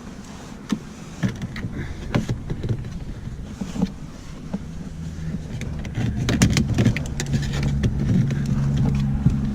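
Irregular plastic clicks and knocks as clips are pried and the Mazda 3's door lock switch panel is worked loose, over a steady low hum that grows louder about six seconds in.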